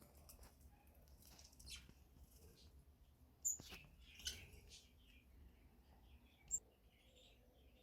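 Budgerigars chirping: faint scattered chatter with a few short, sharp chirps, the loudest about three and a half seconds in and another near six and a half seconds.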